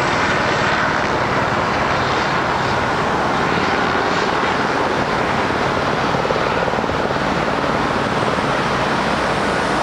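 Helicopter in flight overhead: steady rotor and engine noise with no change in loudness, cut off abruptly at the end.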